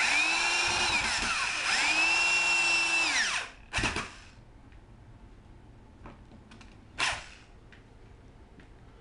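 Corded electric drill driving wood screws through a PVC pipe roller into the landscape timber inside it. The motor whines steadily, drops in pitch and picks up again about a second and a half in, and winds down after about three seconds. Two short bursts of the drill follow, near the middle and about seven seconds in.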